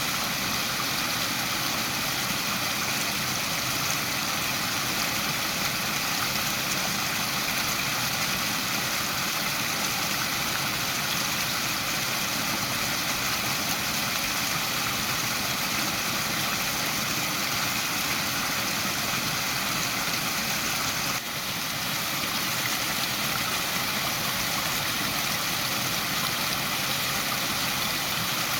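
Waterfall: a steady, unbroken rush of falling water, with a momentary dip in level about two-thirds of the way through.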